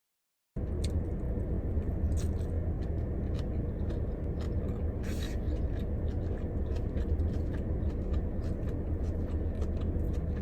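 Close-up eating sounds: chewing and biting food, with small clicks and a short scrape about five seconds in, over a steady low rumble in a car cabin. It opens with half a second of dead silence.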